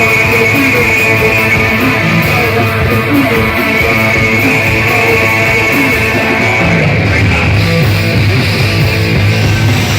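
Rock band playing loud, guitar-driven music live, with electric guitar over a steady bass line.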